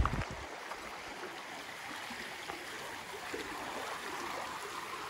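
Shallow river running over a stony bed: a steady rushing wash of water, with one brief low thump at the very start.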